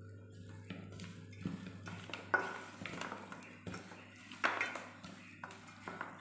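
Hands mixing marinated raw chicken pieces in a stainless steel bowl: wet squelching and irregular knocks of the chicken against the metal, with two sharper clanks about two seconds in and again about four and a half seconds in. A steady low hum runs underneath.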